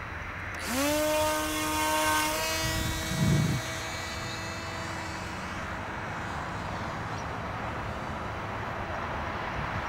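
Electric motor and propeller of an Electrafun RC glider spinning up to full throttle with a rising whine about a second in, holding steady, then fading away over the next few seconds as the plane climbs off. A steady hiss runs underneath, with a brief low rumble about three seconds in.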